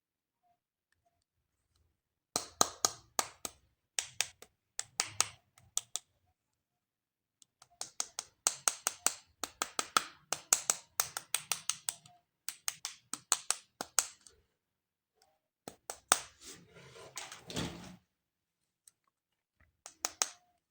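Plastic toys and packaging being handled up close: bursts of rapid, sharp clicks and taps in several runs, with short silent pauses between them.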